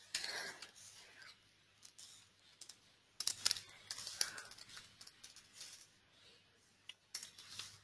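Faint computer keyboard typing: keys tapped in a few short runs, with pauses between them.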